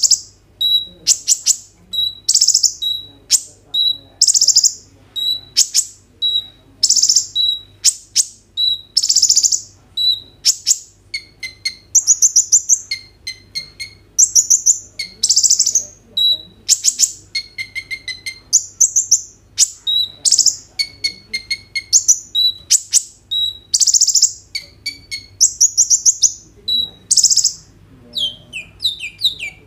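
Male kolibri ninja sunbird singing continuously in full song: a fast string of sharp high chirps and buzzy notes, about one to two a second, broken by quick rattling runs in the middle and a series of falling notes near the end.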